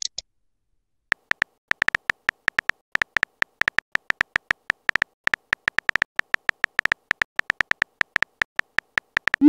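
Simulated phone-keyboard typing sounds from a texting app: rapid, irregular short electronic ticks, several a second, one per letter as a message is typed out. Right at the end comes a short rising tone.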